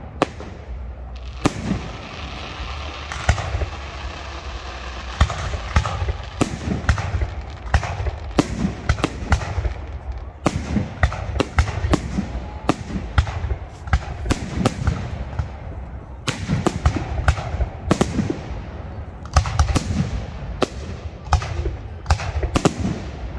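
Fireworks display: aerial shells bursting in quick succession, roughly two sharp bangs a second, each with a booming echo, over continuous crackle.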